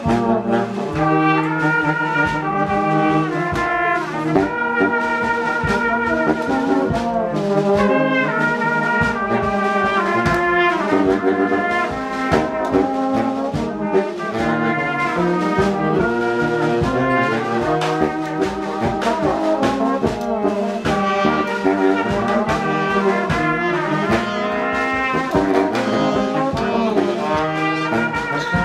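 Brass band playing an instrumental piece: trombones, trumpets and saxophones carry the tune together over a steady bass drum beat.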